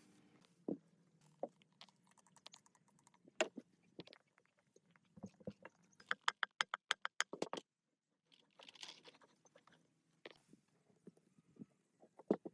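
Hand-tool and metal-part handling: irregular clicks and knocks. About halfway through comes a quick run of around a dozen even clicks, like a ratchet, followed shortly by a brief scraping rasp.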